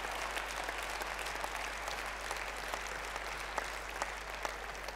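Audience applauding, a steady patter of many hands clapping that eases off slightly near the end.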